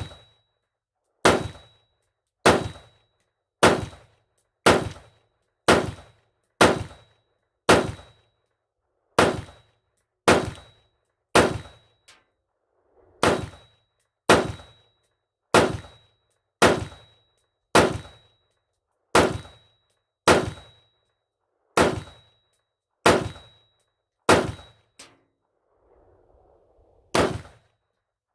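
AR-15 rifle firing semi-automatic: about two dozen sharp shots at a slow, steady pace of roughly one a second, with a short pause near the end. The magazine is being run through as a function test of a new build.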